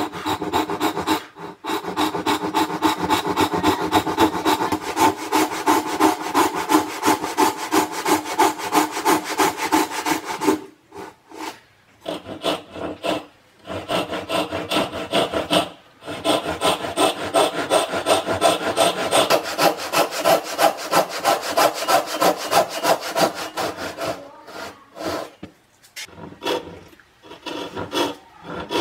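Hand saw cutting wood in quick back-and-forth strokes, about four a second, stopping briefly a few times and becoming uneven near the end.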